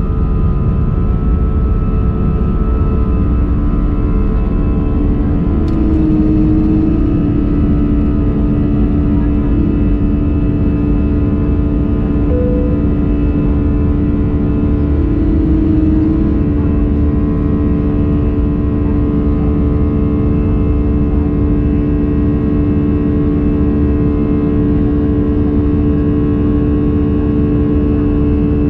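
Jet engine noise heard inside the cabin of an Airbus A319 climbing after takeoff: a steady, loud rush with several steady hums running through it. One hum shifts slightly lower about six seconds in.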